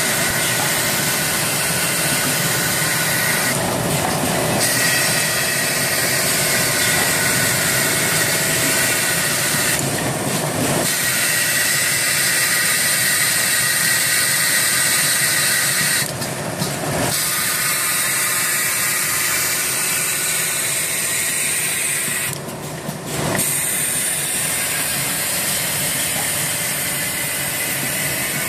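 JS 600A automatic rigid-box gluing machine running: a steady mechanical noise with a constant high hiss, thinning briefly about every six seconds.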